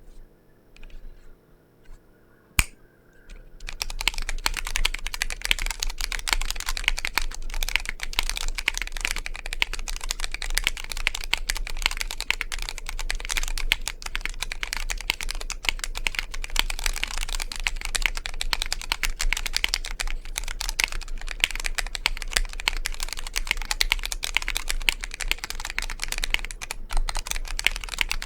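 Fast, continuous typing on a Vortex POK3R 60% mechanical keyboard with Cherry MX RGB Red linear switches, a dense stream of key clacks. It starts about four seconds in, after a few scattered clicks and one sharp knock.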